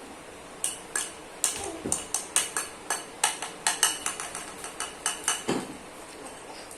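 Utensils clinking and scraping against a dish while food is dished out: a run of sharp, irregular clinks, several a second, starting about half a second in.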